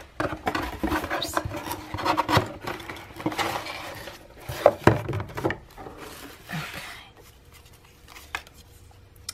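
Cardboard shipping box being handled and moved, cardboard scraping and rubbing with several knocks, the loudest about five seconds in. After about seven seconds it turns quieter: light handling of a stack of paper cards.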